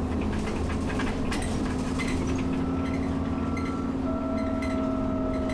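Alexander Dennis Enviro 400 double-decker bus running at speed, heard from inside the cabin: a steady engine and road drone with a whine that comes in about three seconds in, and light rattles and clinks from the interior fittings.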